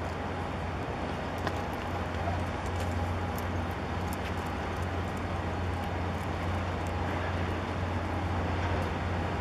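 Steady low hum over an even rushing noise from a large container ship passing close by under way, with a few faint light ticks.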